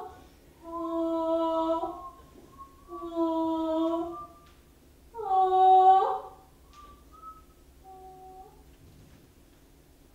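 Wordless singing or humming: held, steady notes of about a second each, in three phrases with short gaps between, then two softer, shorter notes about seven to eight seconds in.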